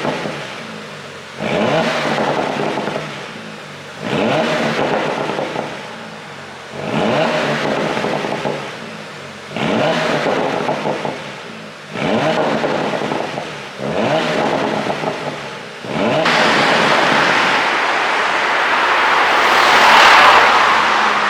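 Porsche Panamera 4S twin-turbo V6 being blipped on the throttle at standstill, six quick revs about every two and a half seconds, each falling back with exhaust crackle as the throttle closes. About sixteen seconds in comes a longer held rev that builds louder toward the end.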